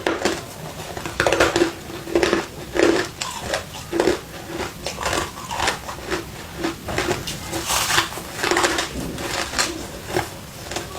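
Crushed ice being bitten and chewed close to the microphone: a run of sharp, irregular crunches, roughly one a second.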